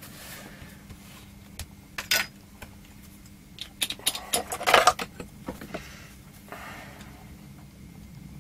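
Small objects and tools being handled on a workbench: scattered light clicks and clattering, loudest in a cluster about four to five seconds in, as a power supply circuit board is set down and a soldering iron is picked up.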